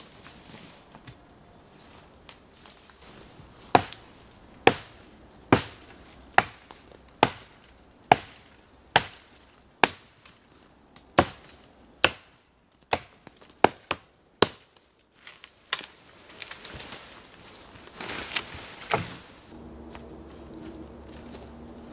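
A fallen tree branch being chopped by hand: about fourteen sharp strikes on wood, a little under a second apart, then rustling and cracking of branches near the end.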